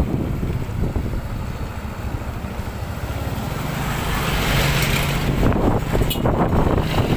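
Strong wind buffeting the microphone, a loud low rumble with rushing noise. In the second half a steady low hum joins in for a few seconds.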